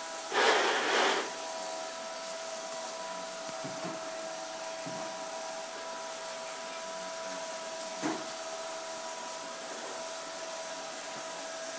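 Bissell Perfect Sweep Turbo cordless sweeper's motorized brush roll running with a steady whine as it is pushed over a vinyl floor. A loud rough rattling burst comes about half a second in and lasts about a second, and a single sharp knock comes about eight seconds in.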